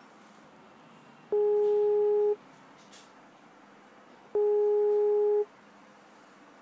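Telephone ringback tone: two steady, low, even beeps, each about a second long and about three seconds apart. This is the ringing a caller hears while the line rings, still unanswered, at the other end.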